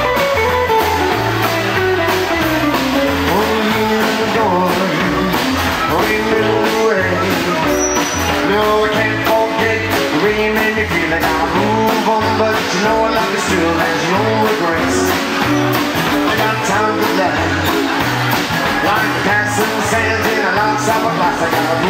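Live rockabilly band playing an instrumental break: electric guitar lead over an upright double bass walking line and drums.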